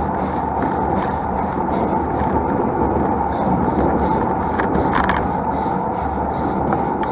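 Steady rushing noise of a road bike being ridden uphill: wind on the microphone and road noise, with a cluster of sharp ticks about five seconds in.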